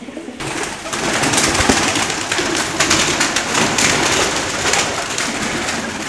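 Domestic pigeons cooing, under a loud rustling hiss that starts abruptly just after the beginning.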